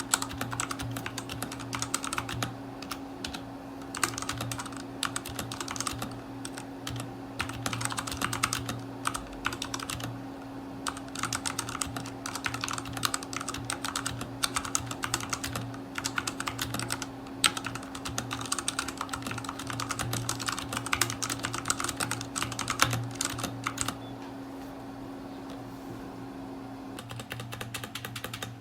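Typing on a Redragon K530 mechanical keyboard with brown switches: a rapid, continuous clatter of keystrokes that pauses for a few seconds near the end, over a steady low hum.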